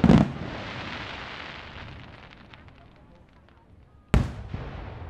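Aerial firework shells bursting: a loud bang at the start, followed by a long fading tail, then a second bang about four seconds in.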